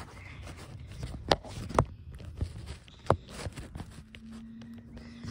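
Handling noise as a phone camera is adjusted and propped on a fabric folding camp chair: rustling, a few sharp knocks, about three of them in the first three seconds, over a low rumble.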